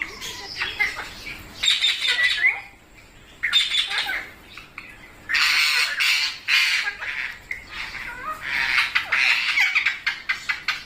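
Pet green parrots squawking and screeching in repeated harsh bouts with short pauses between, the longest and loudest bout a little past halfway.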